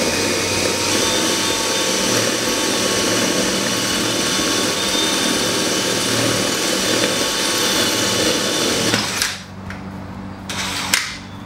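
DeWalt cordless drill with a 3/16-inch masonry bit boring into a cinder block wall, running steadily and loudly, then stopping about nine seconds in. A couple of sharp clicks follow near the end.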